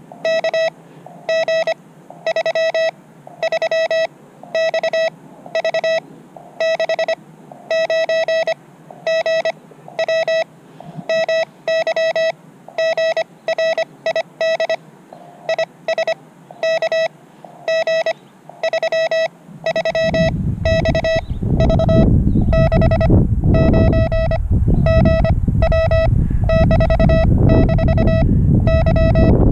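Morse code (CW) from a portable ham radio transceiver: a single mid-pitched tone keyed on and off in dots and dashes. About twenty seconds in, a loud low rumble joins it and drowns the gaps between the characters.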